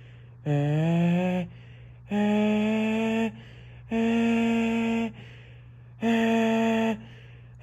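Federal Sign & Signal 500-SHTT outdoor warning siren sounding its attack signal: a steady tone switched on and off in blasts about a second long with short gaps, four in a row. The first blast slides up in pitch as it starts.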